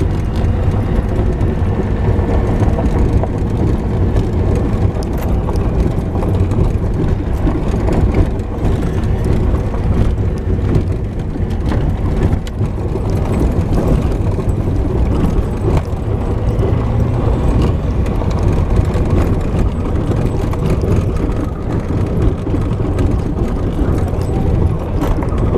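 Jeep driving along a rough dirt trail: a steady low engine and tyre drone, with frequent small rattles and knocks from the bumps.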